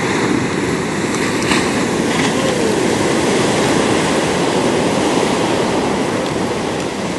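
Big shore-break waves breaking and washing up the beach: a loud, steady rush of surf.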